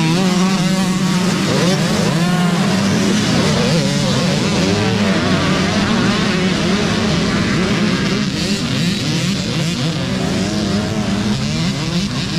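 A pack of youth Super Mini dirt bikes revving hard and accelerating away together off the start, many small engines overlapping and rising and falling in pitch over a steady low drone, thinning out somewhat in the second half.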